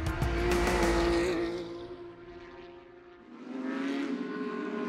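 Engines of Porsche 992 GT3 Cup race cars (flat-six) running at high revs: one car's note fades away over the first two to three seconds, then another car's engine grows louder as it approaches near the end.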